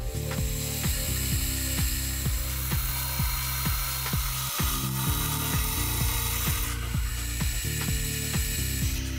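Milling machine spindle running while a drill cuts a crosshole into a brass cylinder: a steady hiss with a faint high whine that eases about seven seconds in. Background music with a steady beat plays underneath.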